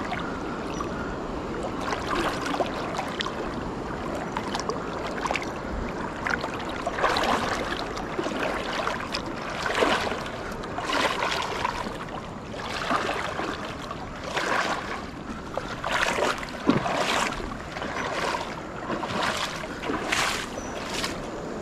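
Someone wading through a shallow, stony river: water swishing and splashing with each step over running water. From about a third of the way in, the steps come roughly once a second.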